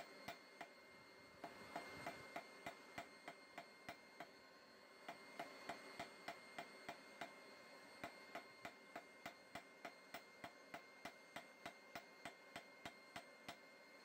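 Hand hammer striking hot metal on a steel anvil in a steady rhythm of about three sharp, ringing blows a second, with two short pauses in the first few seconds.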